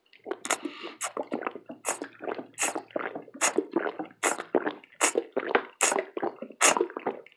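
A mouthful of breakfast burrito being chewed with the mouth open: continuous wet chewing and squishing, with a sharper lip smack a little more often than once a second.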